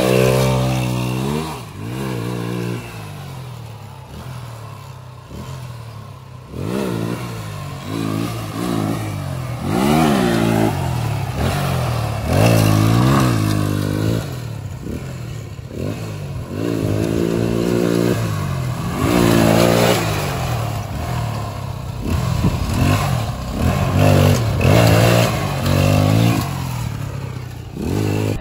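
Hand-built quad bike's engine revved hard again and again as it is ridden, its pitch rising and falling every couple of seconds.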